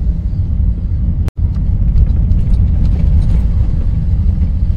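Hyundai Starex camper van driving slowly along a narrow village road: a steady low rumble of engine and road noise. The sound cuts out for an instant about a second in.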